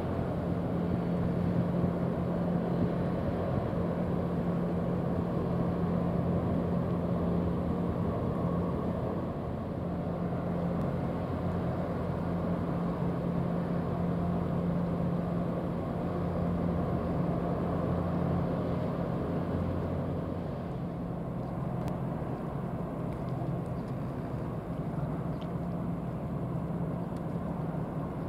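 Steady low drone of ships' diesel engines, with a constant deep hum under it, easing off slightly about two-thirds of the way through.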